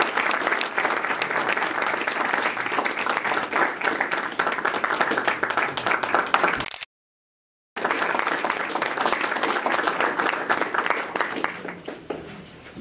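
Audience applauding, a dense patter of many hands clapping. The sound cuts out completely for about a second just past halfway, then resumes and dies away near the end.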